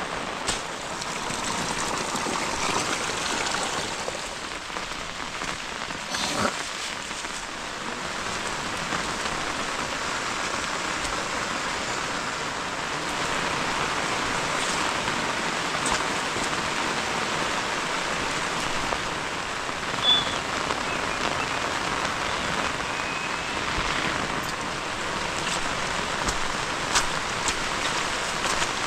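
Heavy rain falling: a steady hiss of rain with scattered sharp drop impacts throughout.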